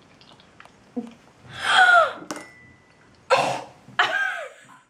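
Girls' vocal reactions to a disgusting-tasting jelly bean: a loud cry of disgust that falls in pitch about two seconds in, then a sharp gasp and another falling cry mixed with laughter near the end.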